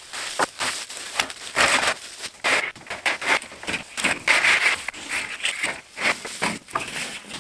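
Irregular crackling, scraping and knocking as a stacked pile of old rough-cut pine boards is uncovered and handled.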